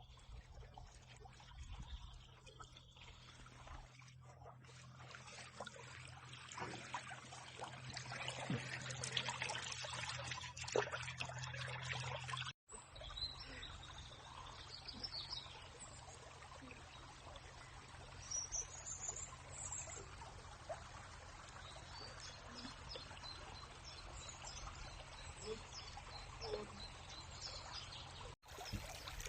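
A small forest stream running steadily in spring, with a few bird chirps over it. The sound cuts out briefly twice, about halfway through and near the end.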